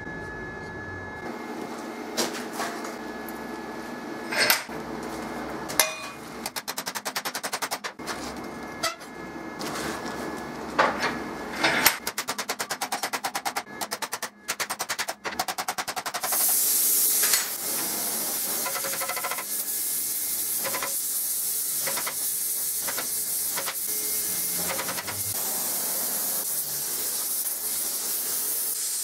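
Steel parts clanking and knocking on a workbench and vise, with two bursts of rapid clicking. About halfway through a gas torch lights with a loud hiss that settles into a steady hiss of the flame heating metal in the vise.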